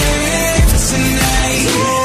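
Pop song with a steady beat and a sustained melodic line, playing as a backing track.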